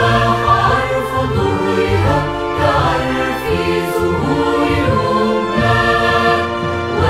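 Mixed choir singing an Arabic hymn to the Virgin Mary, many voices holding long notes together over a steady low line.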